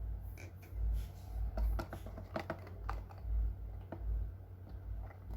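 Hard plastic packaging being handled: irregular small clicks and taps, busiest in the middle, over dull low bumps about once a second, as a camera is worked free of the holder it is fixed into.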